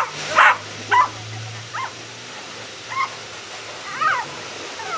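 Beagle puppy whimpering and yelping in a string of about six short, high cries that bend up and down in pitch, a sign of distress at being held for drying.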